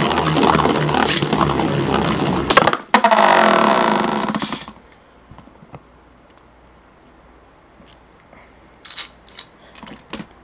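Two Beyblade spinning tops, the left-spin Dragoon G and the right-spin Apollon, whirring and scraping around a plastic stadium. There is a sharp clash nearly three seconds in, then a short loud whirr, and the noise cuts off suddenly at about four and a half seconds. After that only a few light clicks are heard.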